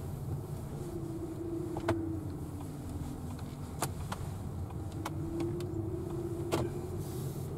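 Inside a car cabin while the car drives slowly: a steady low engine and road rumble with a faint tone that drifts up and down, and three sharp clicks spread through it.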